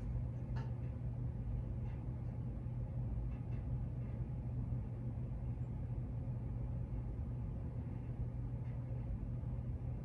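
1999 Hampton Bay Tiffany Sonoma ceiling fan running steadily on medium speed, a low even whoosh and hum from the motor and blades, with a few faint ticks in the first few seconds.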